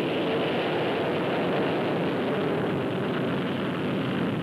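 Jet aircraft taking off and climbing away, a steady, even rush of engine noise that holds without change.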